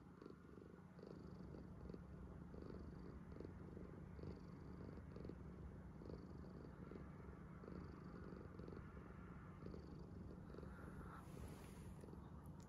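Domestic cat purring quietly and steadily, the purr swelling and easing with its breathing about every second and a half. A brief burst of noise, such as a rustle, comes near the end.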